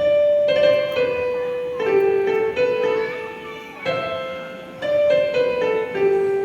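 Piano music: a slow, gentle melody of single notes, each struck and left to ring and fade.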